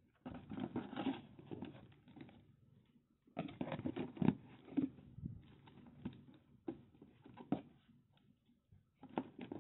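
Hands rummaging in a cardboard box and its foam insert, lifting out a plastic radio charger and its wall adapter: rustling and scraping in two bursts, then a few sharp plastic clicks and knocks.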